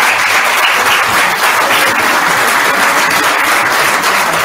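Audience applauding, loud and steady, many hands clapping at once.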